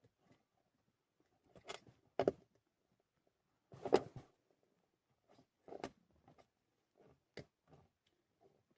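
Scattered small plastic clicks and knocks from handling a wiring connector and pushing at its red safety locking tab, which will not latch; the loudest knock comes about four seconds in.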